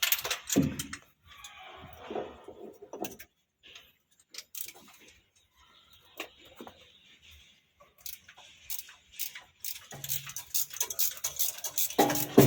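Scattered light clicks and clinks, irregular and sparse, like small metal parts or hand tools being handled.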